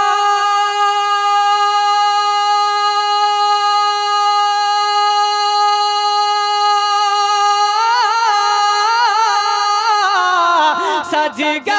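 A man singing a naat unaccompanied, holding one long high note for about eight seconds, then breaking into wavering, ornamented runs that fall in pitch near the end.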